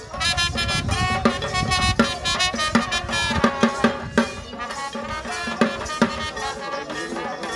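Background music: a melody over drum strikes.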